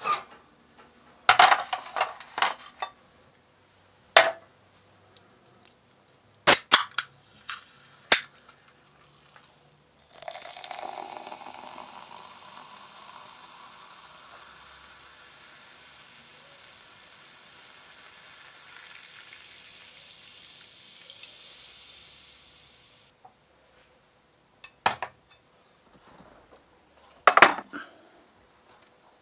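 Crockery clinking as dishes are set on a plastic tray. Then a carbonated soft drink is poured from a can into a glass and fizzes with a steady hiss for about thirteen seconds. A few more clinks of glass and tableware come near the end.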